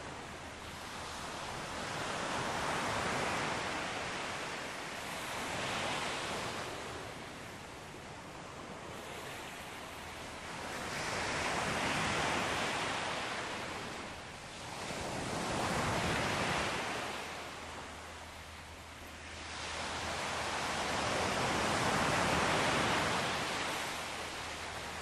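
Ocean surf washing onto a shore, a noisy wash that swells and fades in five slow surges, several seconds apart.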